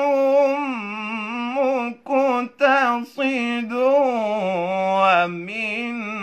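A man's unaccompanied voice reciting the Quran in melodic tajweed style, drawing out long held notes with wavering ornaments. There are a few short breaths between phrases, and the pitch steps lower in the second half.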